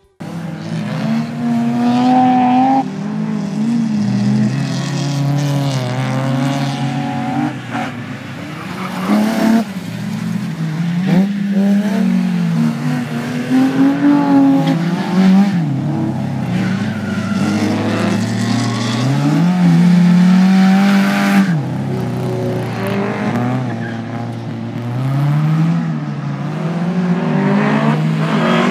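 A small hatchback race car's engine revving hard as it laps a tight circuit. The pitch climbs through each gear, drops sharply at each shift or lift, and climbs again, over and over.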